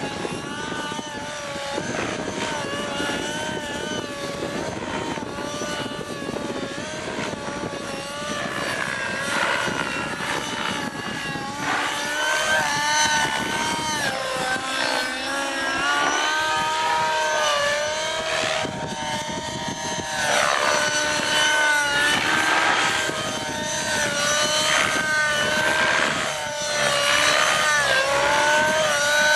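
Align T-Rex 600 Nitro RC helicopter flying aerobatics: its two-stroke glow engine and rotors make a continuous whine whose pitch keeps rising and falling as the throttle and blade pitch change through the manoeuvres.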